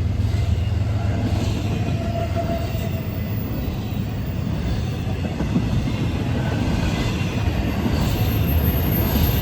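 A train running on rails: a steady low rumble of wheels and cars, with faint higher tones from the wheels.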